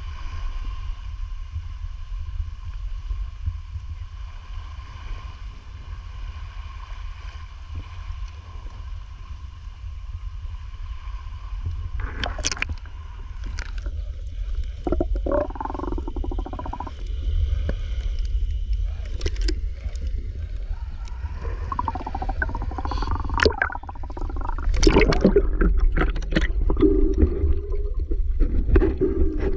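Underwater sound: a steady low rumble of moving water with a faint steady hum of several tones. About halfway through this gives way to scattered sharp clicks and short tonal calls, thickening near the end.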